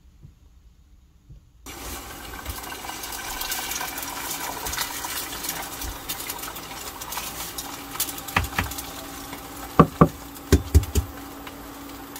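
Eggs being rapped against the rim of a ceramic bowl to crack them: sharp knocks in quick pairs in the second half. A steady background hum runs under them.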